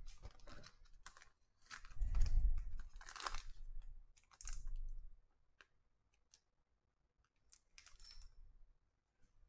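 A thin plastic trading-card sleeve being handled: crinkling and rustling in short bursts, with scattered small clicks, busiest in the first five seconds and then only occasional.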